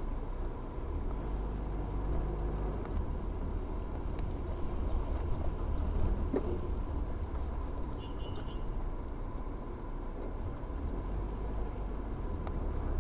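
Steady engine and road noise inside a moving car, picked up by a dashboard camera, with a faint high steady whine throughout and a faint knock about six seconds in.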